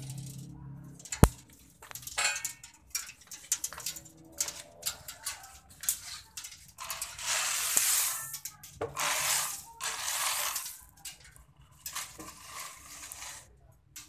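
Freshly roasted coffee beans crackling: scattered sharp snaps from the still-hot beans, with a louder knock about a second in and two stretches of rustling hiss around the middle.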